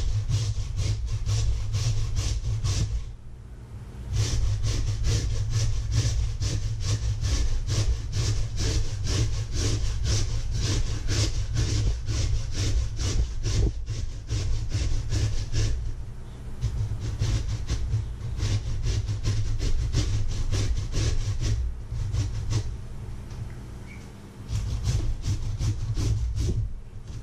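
Raw potato being grated on a hand-held stainless steel grater standing in a metal bowl: quick, even scraping strokes in a long run, broken by a few short pauses. A steady low hum sits underneath.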